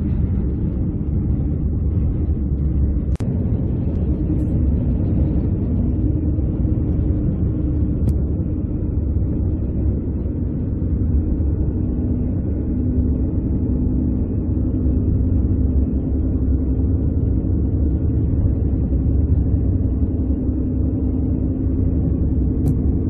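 Steady road and engine rumble heard inside a moving car's cabin: a low, even drone with a faint hum running through it.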